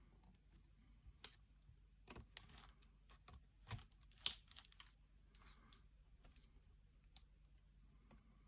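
Handling of a camera mount and clamp: scattered small clicks and knocks, the sharpest about four seconds in.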